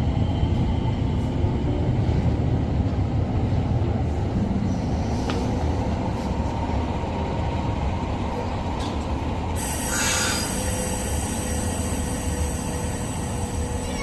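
Train running with a steady low rumble of wheels on rails; about ten seconds in, a sharp hiss suddenly joins it.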